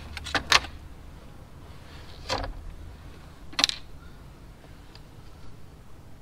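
A few sharp clicks and knocks from hand work on vacuum hose fittings and tools in a car's engine bay: a quick cluster of three near the start, then single clicks at about two and a half and three and a half seconds, over a steady low rumble.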